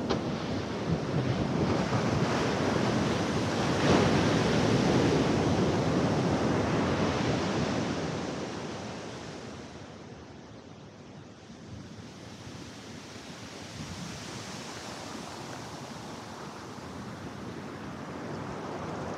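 Ocean surf breaking and washing up a sandy beach in a loud rushing wash, which dies down about halfway through as the water drains back. It builds again near the end as the next wave comes in.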